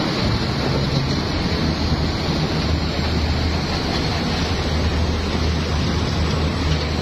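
Muddy floodwater rushing past in a fast torrent, carrying rocks and debris, with a loud, unbroken rushing noise and a steady low hum underneath.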